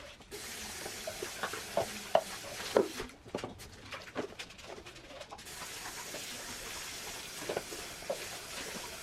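Kitchen work sounds: a steady hiss that stops about three seconds in and starts again a couple of seconds later, with scattered clinks and knocks of dishes or utensils.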